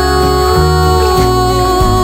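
Background music: a slow pop song with sustained instrumental chords and bass notes.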